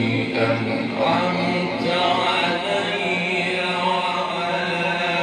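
A man's voice chanting Quranic recitation in the melodic mujawwad style. He draws out long held notes that turn and waver in ornamented melodic lines, without a break.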